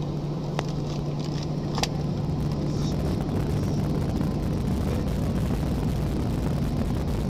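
Airliner cabin noise while taxiing: a steady low hum and rushing from the jet engines. Two brief clicks come in the first two seconds.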